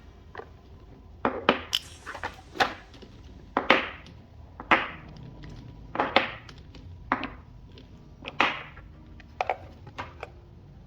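Hand tools clicking and scraping against the 18650 lithium cells of an opened 48 V e-bike battery pack: about a dozen sharp, irregular knocks and short scrapes.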